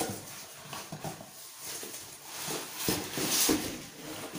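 Cardboard box and foam packing sheet rustling and scraping, with a few light knocks, as a motorcycle silencer is pulled out of its packaging. The rustling is loudest about three seconds in.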